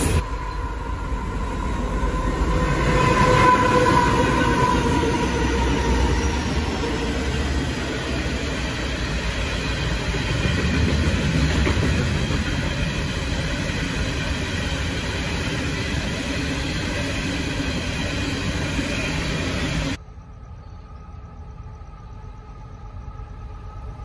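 Diesel-hauled coal train passing close by. A horn sounds as the locomotives go past, falling slightly in pitch. The long string of coal hopper wagons then rumbles and clatters by steadily, until the sound drops abruptly to a much quieter distant rumble about 20 seconds in.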